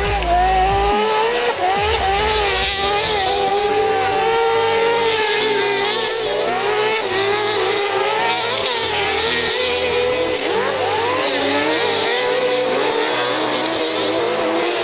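Several supersprint race car engines running hard at once, their pitches rising and falling and overlapping as they rev.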